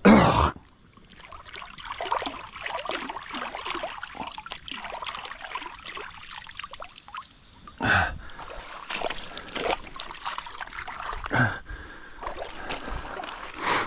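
Shallow creek water trickling and splashing around hands working in it, with brief louder splashy moments at the start and about eight and eleven seconds in.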